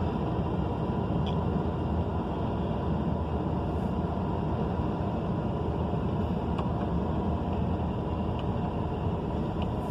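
Vehicle driving over rough ground: a steady rumble of engine and tyre noise with a few faint rattles.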